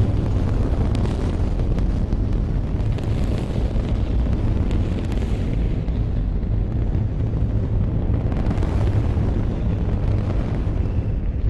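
Saturn V S-IC first stage's five F-1 rocket engines firing in a static test: a steady, heavy low roar laced with crackling.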